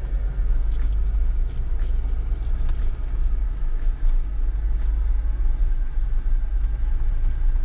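Jeep Wrangler crawling along a dirt trail at walking pace, heard from inside the cab: a steady low rumble of engine and tyres, with scattered small clicks.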